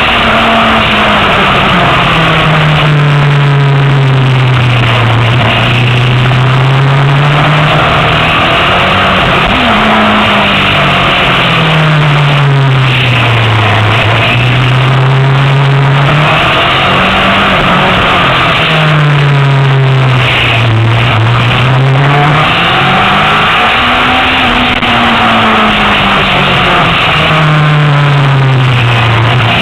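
Honda CBR1000RR inline-four sport bike engine at speed on track, its pitch repeatedly climbing under acceleration and dropping back as the rider changes gear and slows for corners, over steady wind noise.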